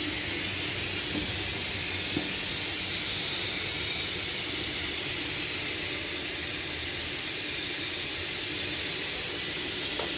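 Steady, unbroken hiss, strongest in the upper range, that cuts off abruptly at the end.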